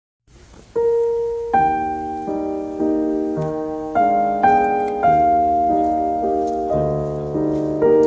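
Background music: a piano playing slow chords, each struck and left to ring, beginning just under a second in.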